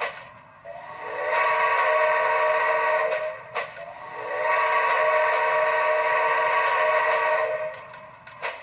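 Steam whistle from the Soundtraxx sound decoder in a Bachmann EM1 model locomotive, played through its small speaker: two long blasts of about three seconds each, with a click between them.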